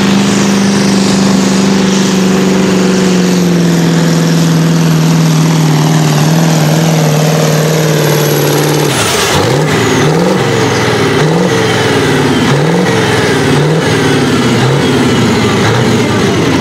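Pulling tractor's engine running loud at steady high revs, its pitch dropping a step about three and a half seconds in. Around nine seconds in the sound changes abruptly, and the engine is then revved up and down over and over, about once or twice a second.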